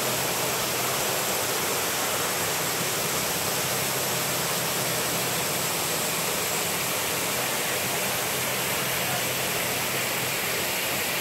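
Aircraft turbine noise on the apron: a steady rushing roar with a high, steady whine over it.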